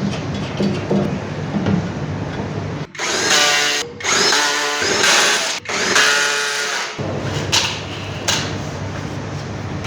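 Electric power drill/driver running in three bursts of a second or so, each a steady motor whine, followed by two light clicks.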